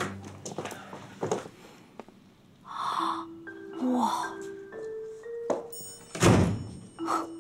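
A door being unlocked and opened, with clicks in the first second and a heavy thump about six seconds in, under light background music of short stepped notes.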